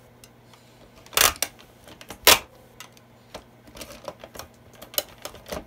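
A serrated knife cutting at a toy's cardboard and plastic packaging insert, making irregular sharp clicks and snaps, the loudest about a second and two seconds in, with lighter ticks and scrapes between them.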